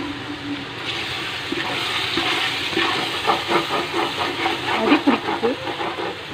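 Chicken and masala sizzling in hot oil in a cooking pot while being stirred, with short metal scrapes and clatters from the ladle against the pot in the second half.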